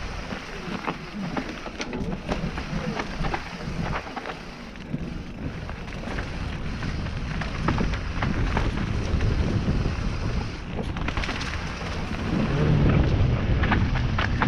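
Wind buffeting an action camera's microphone on a fast mountain bike descent of a dirt singletrack, with tyre rumble and frequent rattles and knocks from the bike over roots, stones and dry leaves. It gets louder near the end.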